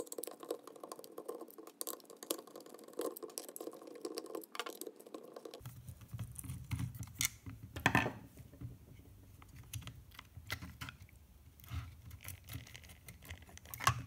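Screwdriver turning out the screws of a plastic dishwasher pump housing: a run of small clicks and scrapes, sparser after about five seconds, with a sharper knock about eight seconds in and another at the end.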